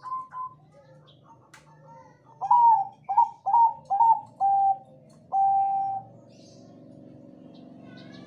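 Bangkok-strain zebra dove (perkutut) singing. It opens with a soft run of quick coos, then gives a loud phrase of five short, clipped coos ending in one longer held note. A faint steady hum follows near the end.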